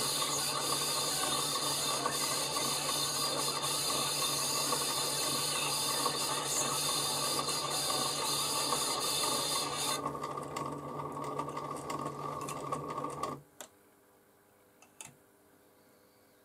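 Homemade stepper-motor record player running at 45 rpm: the stepper motor and its 3D-printed reduction gears make a steady whine and grinding, over a faint hiss of the record playing through the needle. The hiss drops away about ten seconds in, the motor stops a few seconds later, and a couple of small clicks follow.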